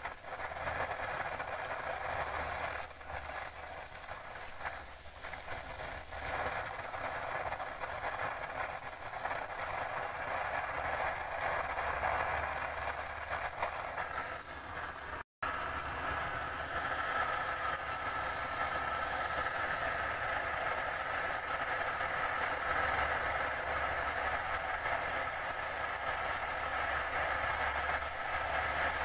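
Gas torch burning steadily with a constant rushing hiss as its flame plays into a clay crucible to melt metal. The sound cuts out for a split second about halfway through.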